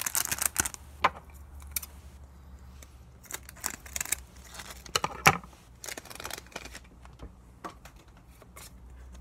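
Pokémon trading cards and their plastic sleeves being handled and flicked through: irregular small clicks and slides of card stock and plastic, with a louder click a little after five seconds in.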